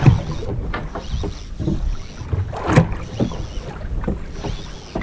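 Wind buffeting the microphone on a boat at sea, a steady low rumble and hiss, with scattered short knocks and one louder noise a little past halfway.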